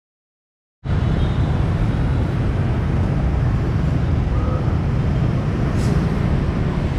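Steady outdoor street noise with a heavy low rumble of traffic, starting suddenly about a second in after silence.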